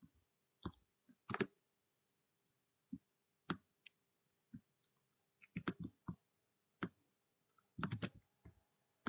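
Irregular clicks of a computer keyboard and mouse, some single and some in short clusters, as commands are selected, copied and pasted into a terminal.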